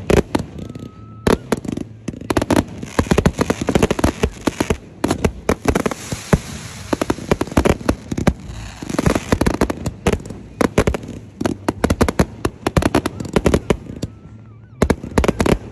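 Fireworks going off in a dense, rapid run of bangs and crackling pops, thinning briefly about a second in and again near the end. A short thin whistle sounds at each of those two lulls.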